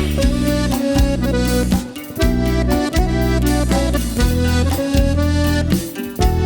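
Instrumental passage of band music: an accordion plays held melody notes over a strong, rhythmic bass line, with no singing.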